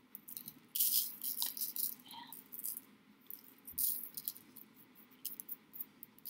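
Light crinkling and rustling in short, irregular bursts: a small plastic bag of glitter being handled as glitter is pinched out and sprinkled.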